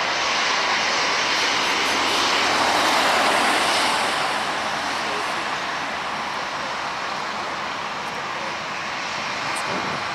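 Boeing 737-800's two CFM56-7B turbofan engines at take-off thrust as it lifts off and climbs away: a broad jet noise that swells to its loudest about three seconds in, then slowly fades.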